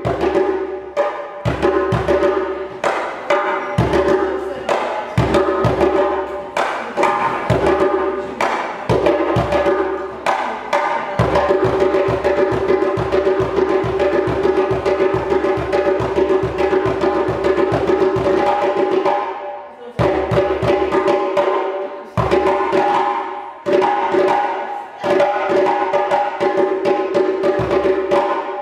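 Djembe played with bare hands in a fast solo: dense, rapid strikes over the drum's ringing tone, with brief breaks about twenty seconds in and again a couple of seconds later.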